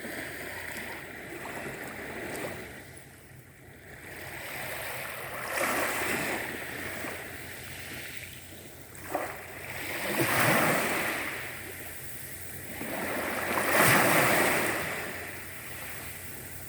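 Sea waves washing onto a shore, the surge swelling and receding three times, each swell louder than the last, with one brief sharper splash just before the second.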